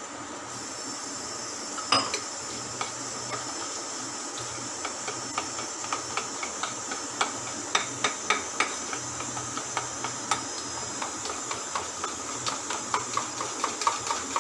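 Spoon beating thick besan (gram-flour) batter in a steel bowl: repeated clicks and taps of the spoon against the bowl, coming faster and more often after the first few seconds, over a steady hiss.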